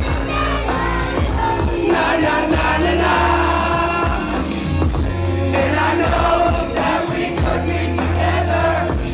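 Loud live concert music through a venue sound system: a heavy, steady bass beat under sung vocals, with many voices singing.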